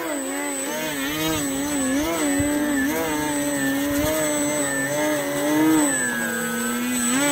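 Small electric RC aerobatic plane (Precision Aerobatics QQ Extra 300 on a 3S battery) in a nose-up hover: its motor and propeller buzz, the pitch wavering up and down constantly as the throttle is worked. About six seconds in the pitch drops lower and steadier, then rises again right at the end.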